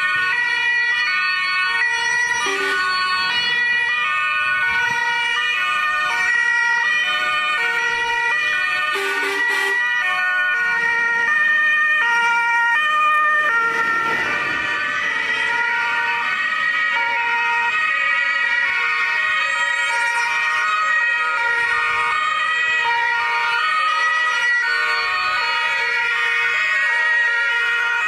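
Several German two-tone emergency vehicle sirens (Martinshorn) sounding at once from passing ambulances and rescue vehicles, their alternating high and low notes overlapping out of step. About halfway through, a vehicle passes close with a swell of engine and tyre noise.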